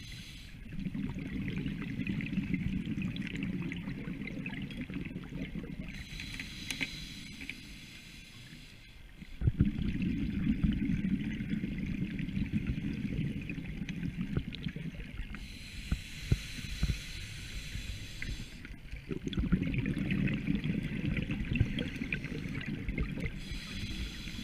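Scuba regulator breathing heard underwater: a hissing inhale through the demand valve, then several seconds of exhaled bubbles, repeating three times.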